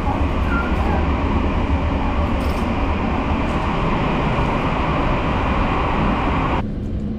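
Steady running noise inside the moving Sunrise Express sleeper train (a JR 285 series electric multiple unit), heard from the vestibule between cars: a deep rumble under a rushing hiss. About six and a half seconds in it cuts abruptly to a quieter, duller hum.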